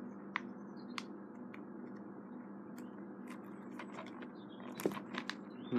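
Faint, scattered small clicks and scrapes of scissors working at a DVD box set's plastic packaging, with a cluster of clicks near the end, over a low steady hum.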